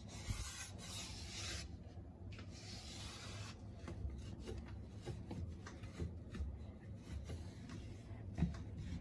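A cloth scrubber rubbing back and forth on a grimy metal window frame, scrubbing off greasy dirt. Two long scrubbing passes in the first few seconds, then lighter, scattered scrapes and small knocks.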